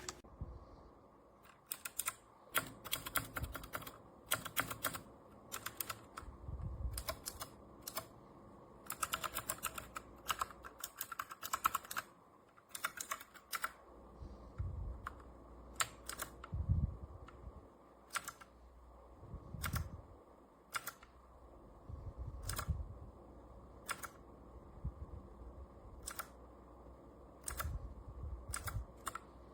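Typing on a DIERYA T68SE 60% mechanical keyboard: irregular bursts of quick keystroke clicks broken by short pauses, thinning out to single, spaced key presses in the second half.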